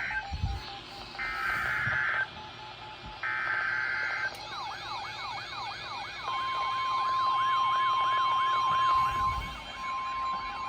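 NOAA Weather Radio SAME alert header: the tail of one buzzy data burst, then two more, each about a second long with a second's gap between them. About four seconds in, a weather radio receiver's alert siren starts warbling up and down, and about two seconds later the steady single-pitch NOAA warning alarm tone joins it, signalling an incoming severe thunderstorm warning.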